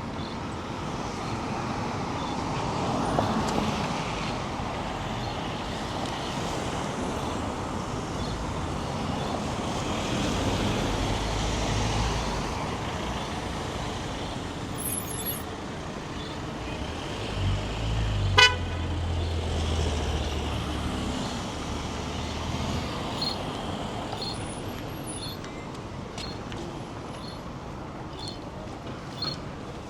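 City road traffic: vehicles passing with a low engine rumble, and one short car-horn toot about eighteen seconds in.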